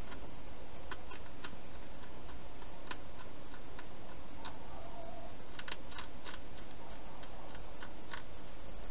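A wild hedgehog eating inside a clear plastic feeding box: irregular sharp clicks of chewing, about one or two a second, bunching into a quicker run a little past halfway, over a steady hiss.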